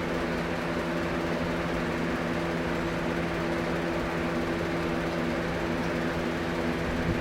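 A machine running steadily in the workshop: an even mechanical hum with a constant low drone that holds at one pitch.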